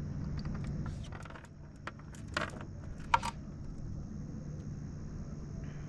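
A few light metallic clicks and clinks of small hard objects being handled, bunched between about one and three seconds in, over a steady low hum and a constant high insect trill.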